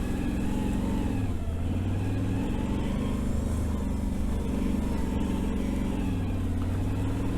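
Can-Am Renegade 1000 ATV's V-twin engine running at low speed, its pitch rising and falling a little with the throttle as it crawls over a rough, rocky trail.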